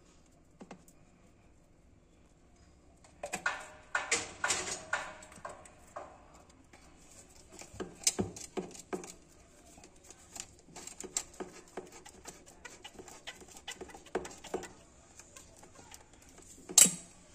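Irregular clicks and knocks of CPVC pipe and fittings being handled and joined in a wall chase while yellow solvent cement is daubed on. They come in scattered clusters after a quiet first few seconds, with one sharper knock near the end.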